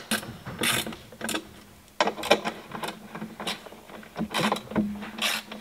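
Ratchet spanner clicking in short, irregular bursts as bolts are tightened on the mounting points of a fibreglass bucket seat, over a steady low hum.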